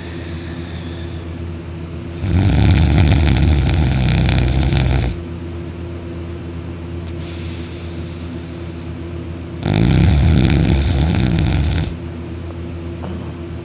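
Deep, very loud snoring from a sleeper: two long, rough snores, each lasting two to three seconds, about seven seconds apart. A steady low hum runs beneath them.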